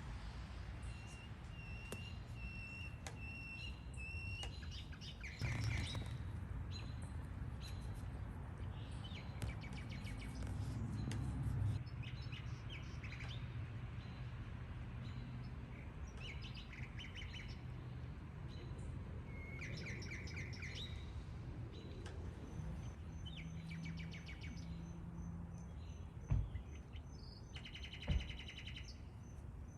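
Several small birds chirping and trilling in short phrases, over a steady low rumble, with two brief knocks near the end.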